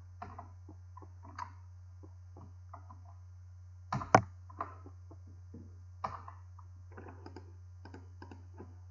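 Computer keyboard keystrokes and clicks, scattered and quick, with two louder clicks about four seconds in, over a steady low hum.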